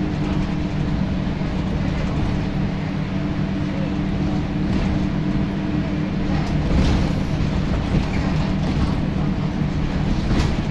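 Scania L94UB Wrightbus Solar bus heard from the back seat: its rear-mounted diesel engine drones steadily as the bus runs, with a few short knocks and rattles from the body in the second half.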